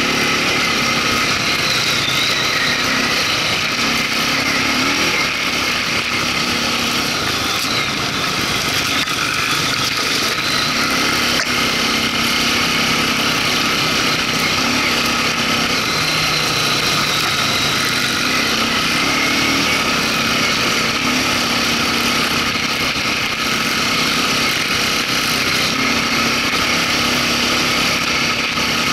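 Off-road vehicle engine running continuously on a dirt trail ride, its low note rising and falling a little every few seconds with the throttle.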